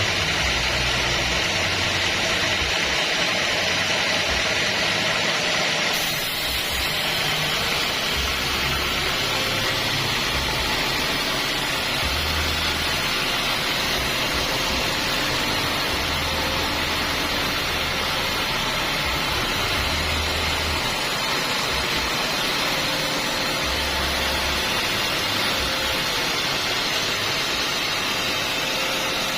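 Sawmill bandsaw running, a loud steady noisy whir with irregular low thumps underneath; the sound changes abruptly about six seconds in.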